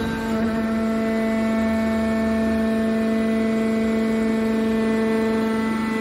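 Hydraulic power unit of an aluminum scrap metal baler running: electric motor and pump giving a steady pitched hum.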